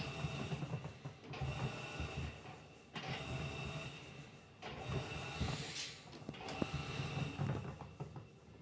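Electrolux LTC15 top-loading washing machine agitating: its Welling motor and agitator run in strokes that start and stop about every one and a half to two seconds, each with a rumble and a steady high whine.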